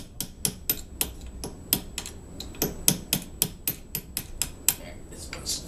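A hammer tapping a steel punch, about four quick blows a second, driving a worn bushing out of a cart wheel hub. The tapping grows uneven and stops shortly before the end.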